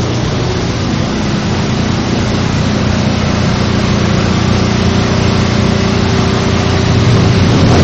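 A motor vehicle's engine running steadily under a constant rushing noise, slowly growing louder.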